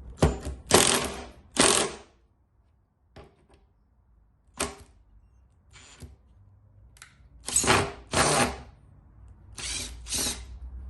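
Ryobi One+ 18V cordless 1/4 in. impact driver run in reverse, backing screws out of wood in several short trigger bursts, its hammer mechanism rattling during each one.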